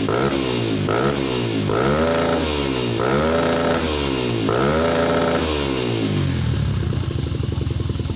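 Motorcycle with a Prospeed RX series aftermarket exhaust being revved for a sound check: a few quick throttle blips, then three longer revs that rise and fall, before it drops back to a steady idle about six seconds in.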